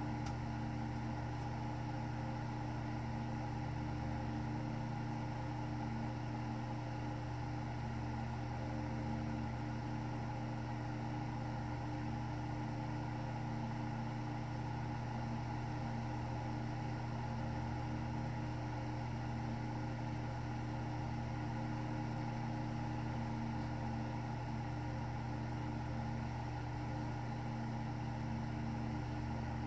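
A steady, unchanging machine hum, with no rise and fall of breathing in it.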